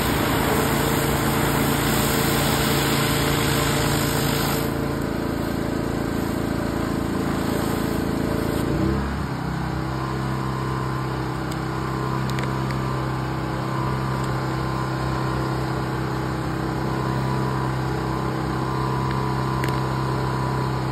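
Pressure washer's small engine running steadily, with the hiss of high-pressure water under a rotary surface cleaner on concrete. The hiss drops away about four or five seconds in, and the engine note shifts a little before nine seconds in.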